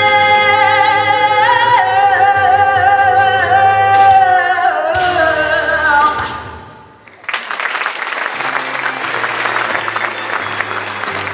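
Live singing with music, holding long notes that close on a final note sliding down about six seconds in. After a brief lull, an audience breaks into steady applause.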